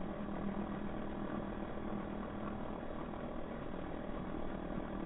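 A motor running steadily, with a constant even hum.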